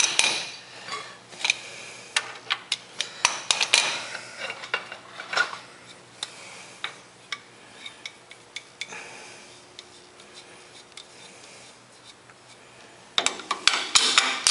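Irregular metallic clicks and clinks of a wrench, with a pipe over its handle for leverage, being worked on the hydraulic line fitting of a Ford 2000 tractor as the fitting is unscrewed. The clicking thins out and quietens through the middle and picks up again near the end.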